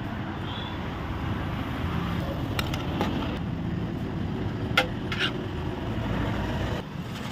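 Steady road traffic noise from passing vehicles, with a few short sharp clicks in the middle.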